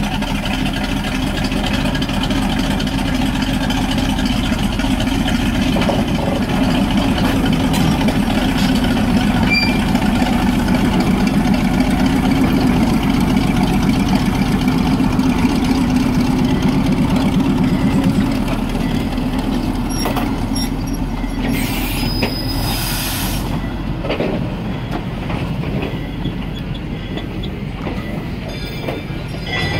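Stewartstown Railroad No. 9 'Mighty-Mo', a small diesel switcher locomotive, running under load as it pulls a passenger coach out. Its engine drone is strongest in the first half and then eases as the coach rolls past on the rails. About two-thirds of the way through comes a sharp hiss of air lasting about two seconds.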